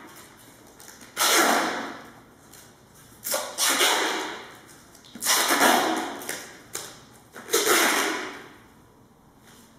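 Aerosol spray can hissing in four bursts of about a second each, each starting sharply and fading, as paint is sprayed onto a watermelon.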